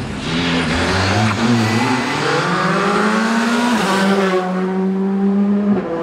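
Rally car's engine revving hard as it powers through a corner and past, its pitch climbing, then dropping once at a gear change about four seconds in and holding a steady note as the car pulls away.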